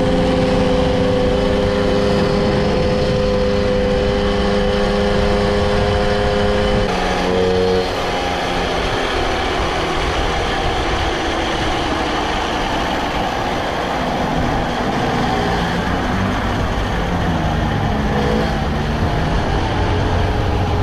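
Engine of a vehicle under way, running at a steady pitch, with road and wind noise. About seven seconds in the engine note shifts and then runs rougher and less even.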